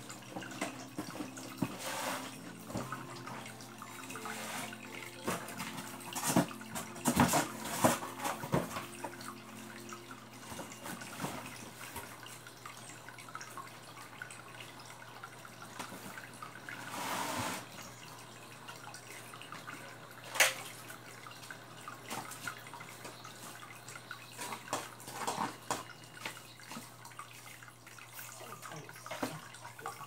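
Water dripping and splashing into an aquarium tank in irregular drops, some clustered and one longer splash, over a steady low hum.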